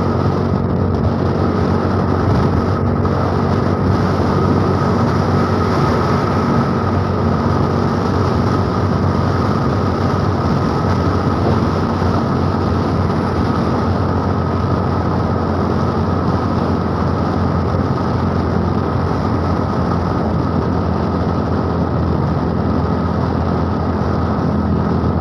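Honda automatic scooter cruising at steady speed: a constant rush of wind and road noise with the engine humming steadily underneath.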